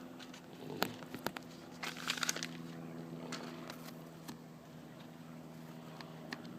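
Sticky plastic lens-repair film being handled, crinkling and crackling in scattered clicks, with a denser crackle about two seconds in. A steady low hum runs underneath.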